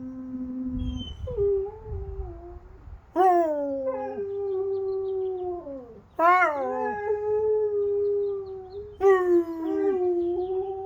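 Dog howling: three long howls about three seconds apart, each starting on a sharp high note that drops and then holds a steady pitch, with the end of an earlier howl at the start.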